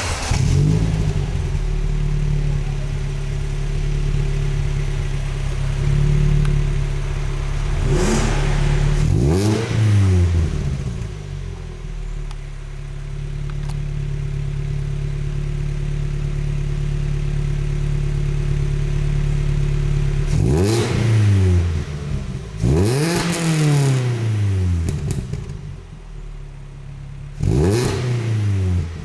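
Ford Fiesta Mk7 Zetec S 1.6 Ti-VCT four-cylinder petrol engine, heard through a Milltek Sport cat-back exhaust with twin tailpipes, idling steadily and blipped about five times. Each blip rises sharply and falls back to idle: a pair about a third of the way in and three more in the last third.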